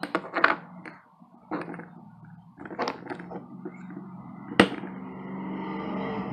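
Small plastic toys and packaging being handled: scattered clicks and knocks, with one sharp knock about four and a half seconds in. A low steady hum comes in near the end.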